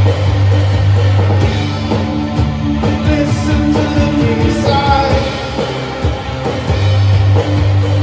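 Rock trio playing live: drum kit, bass guitar holding low notes and echo-laden electric guitar in a space-rock, shoegaze style.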